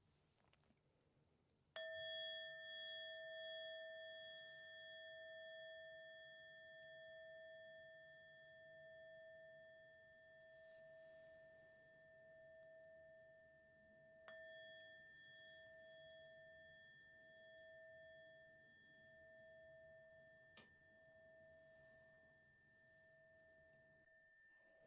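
Meditation bell struck twice, about 12 seconds apart, each time ringing out in one clear pure tone with a few high overtones that slowly pulses as it fades; it marks the close of the silent sitting. A faint click near the end.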